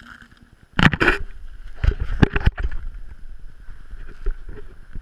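An action camera being picked up and handled on the ice. About a second in there is a sudden cluster of loud knocks and scrapes, a few more sharp knocks follow near two seconds, and then low rumbling handling noise with scattered ticks.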